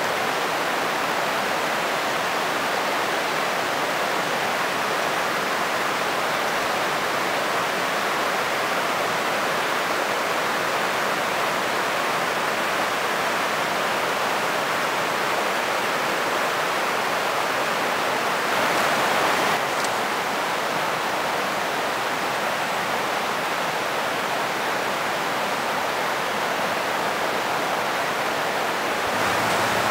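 Steady rush of a river running high with snowmelt, an even, unbroken hiss of water that swells slightly for a second or so about two-thirds of the way through.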